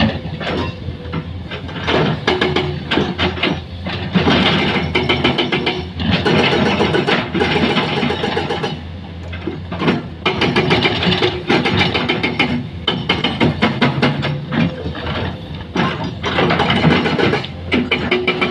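Heavy construction machinery's diesel engine running with a fast rattling clatter, its level surging up and dropping back every second or two.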